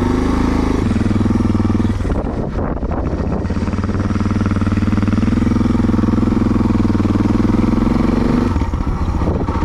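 Suzuki DR650's single-cylinder engine running under way, with a brief break in its note about two seconds in, then a long even pull that eases off near the end.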